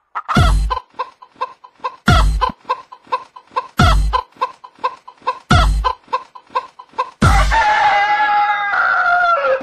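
Electronic dance track built from chicken samples: quick short clucks, about four or five a second, over a heavy bass hit roughly every second and three-quarters. Near the end a drawn-out crowing call slides down in pitch.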